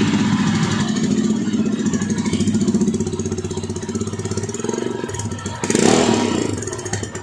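Royal Enfield Himalayan's 411 cc single-cylinder engine idling through its stock silencer, with a short throttle blip about six seconds in.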